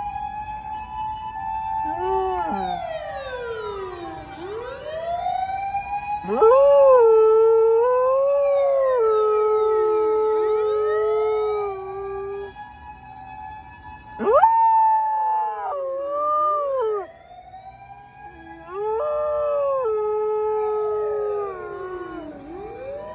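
A borzoi howling along with a wailing emergency-vehicle siren: the siren sweeps up and down throughout while the dog gives several long, wavering howls over it, the longest lasting about six seconds and loudest of all.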